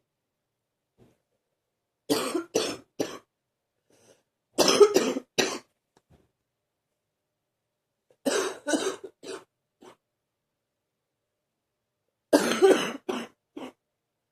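A person's deep coughing, coming in four fits of three or four coughs each, a few seconds apart.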